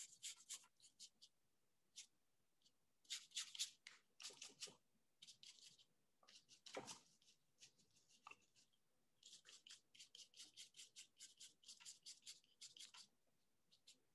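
Faint paintbrush strokes on paper: short scratchy brushing in clusters, with a quick run of strokes, about four a second, in the last few seconds.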